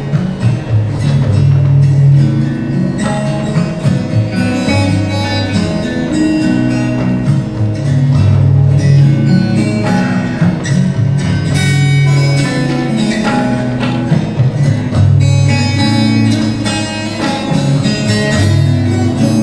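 Acoustic guitar and tabla playing together live: plucked guitar notes over tabla drum strokes.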